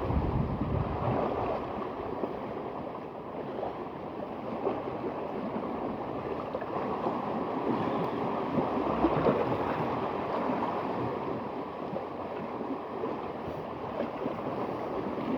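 Sea water washing and wind blowing together as a steady rushing noise, with no distinct knocks or calls.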